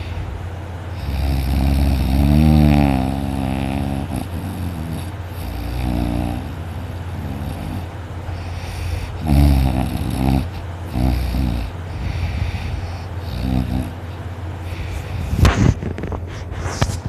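Loud snoring from someone deeply asleep: a string of snores of uneven length, some with a wavering pitch, over a steady low hum. A few sharp knocks or rustles come near the end.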